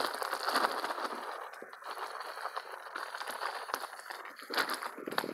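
Fresh riced cauliflower sizzling and crackling on a hot Blackstone gas griddle, with a plastic bag crinkling as it is shaken out near the end.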